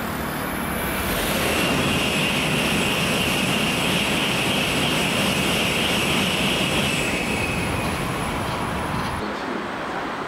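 Tokaido Shinkansen train passing at high speed: a rushing roar with a steady high whine, swelling over the first couple of seconds and dying away after about eight.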